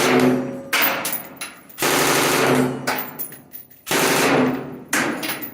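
M249 SAW light machine gun firing full-auto, in about five bursts of rapid shots one after another, each about a second or two long.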